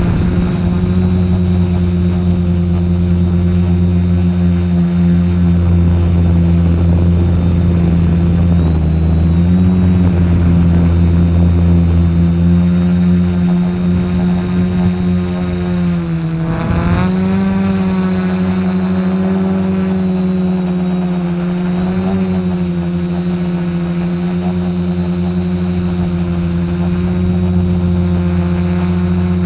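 F450 quadcopter's four electric motors and propellers whining steadily, heard through its onboard camera. About halfway through, the pitch dips sharply and then climbs back.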